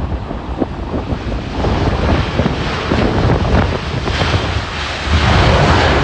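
Gusty wind buffeting the microphone over the jet-engine noise of an Airbus A330 on its landing roll. The engine noise swells and is loudest near the end.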